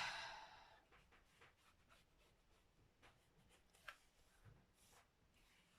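Near silence: a breathy exhale at the start fades out within about a second, followed by a few faint, scattered taps and rustles.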